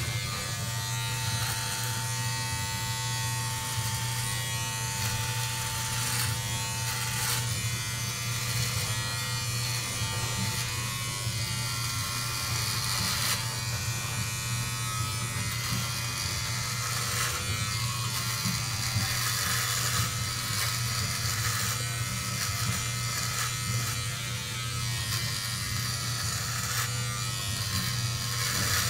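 Braun All-in-One Series 5 electric trimmer running with a steady buzz as it cuts short head hair through its length guard.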